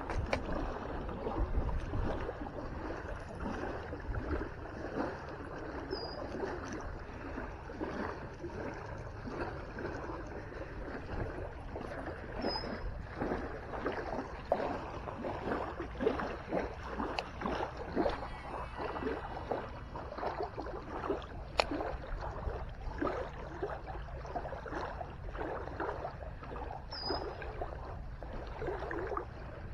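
Small lake waves lapping and splashing irregularly against a gravel shore, over a steady low rumble of wind on the microphone.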